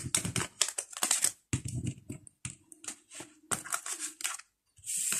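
Tarot cards being laid down and slid on a hard tabletop and gathered in the hands: a run of light taps, clicks and brief rustles.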